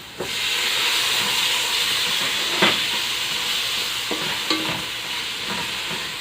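Chopped tomato hitting a hot pan of fried onion and spice masala, sizzling loudly all at once and then slowly dying down. A spoon stirs and scrapes the pan a few times.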